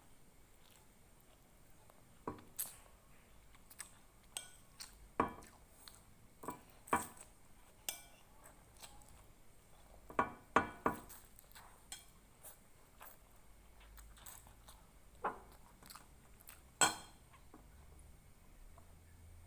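Cutlery clinking and scraping against a plate while eating fried noodles and rice: scattered sharp clinks, a cluster of them about halfway through, with faint chewing.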